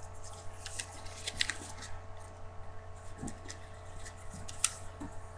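A sheet of paper being folded and creased by hand on a wooden tabletop: soft crinkling and rubbing with scattered small crackles.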